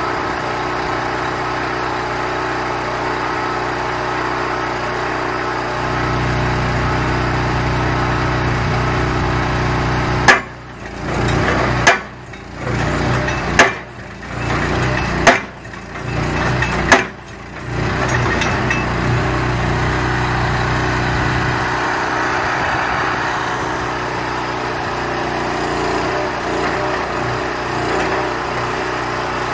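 Engine of a self-propelled guardrail post driver running steadily, and about ten seconds in the driver's hammer strikes a steel guardrail post five times, roughly one and a half seconds apart.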